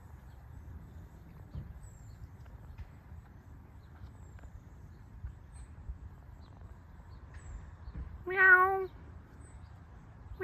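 A domestic cat meows once, about eight seconds in: a single meow of well under a second, held on a level pitch.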